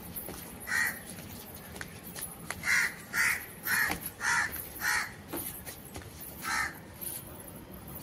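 A bird calling repeatedly: about seven short, rough calls, several in quick succession between three and five seconds in.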